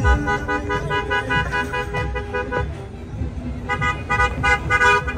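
Car horns honking in short, repeated blasts over the low rumble of slow, heavy traffic. The honking eases off for about a second just past the middle, then picks up again.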